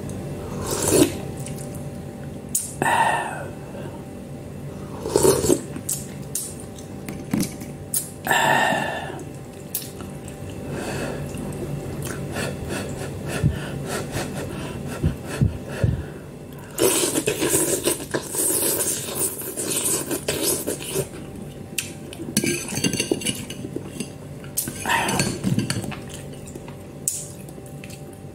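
Eating instant noodles: a fork and spoon clinking and scraping against a bowl, with repeated short slurps of noodles and broth.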